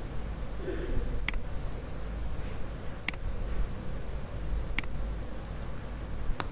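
Four sharp, isolated clicks, about one every 1.7 seconds, over a steady low hum and hiss of background noise.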